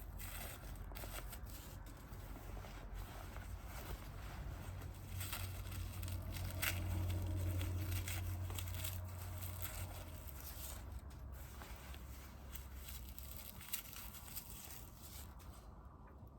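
Rustling and crinkling of a dress's fabric being handled close by, with a low rumble from about five to ten seconds in and a single sharper tick near the end.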